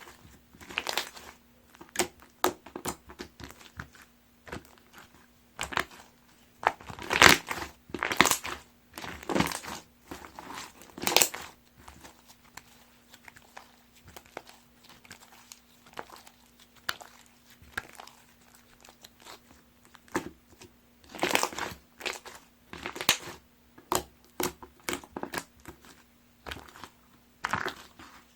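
Purple grape slime being squished and pressed by hand, giving irregular crackling and crunching clicks and pops. The clicks come in denser flurries about a quarter of the way in and again about three quarters of the way in, and are sparser between.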